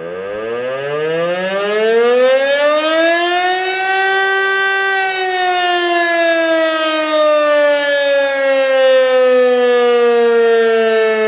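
DS977 civil-defence siren sounding in a test: its wail rises steeply in pitch over the first four seconds or so as the siren winds up, then holds and slowly sinks.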